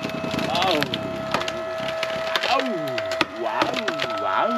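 Log being split by a hydraulic log splitter: the wood creaks in tones that bend up and down and cracks with sharp snaps as the fibres tear apart, over a steady hum.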